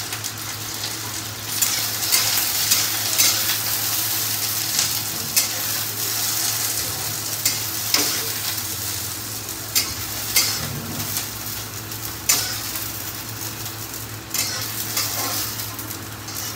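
Chopped okra sizzling in hot oil in a kadhai as it is scraped in from a steel plate, with sharp clicks and scrapes of a spatula against the plate and pan. The sizzle swells about a second and a half in.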